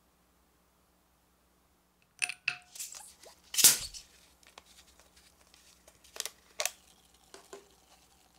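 A plastic Coca-Cola bottle being twisted open. About two seconds in, a few sharp clicks of the cap's seal giving way, then a short loud hiss of carbonation escaping. A few light clicks and taps follow.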